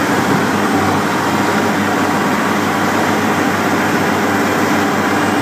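Asphalt paver's diesel engine running steadily.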